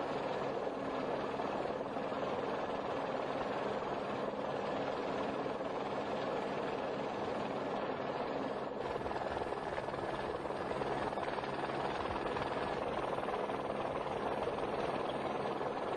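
Steady engine drone: an even rush with low humming tones that does not change.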